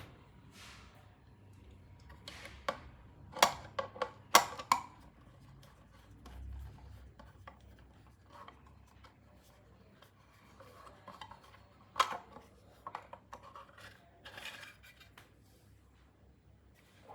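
Metallic clinks and small knocks of tools and metal parts being handled, with a few sharper clanks about three to four and a half seconds in and one near twelve seconds.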